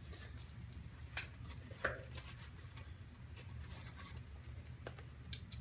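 Faint handling of a nylon magazine pouch: a few light, scattered clicks and rustles over a low steady hum.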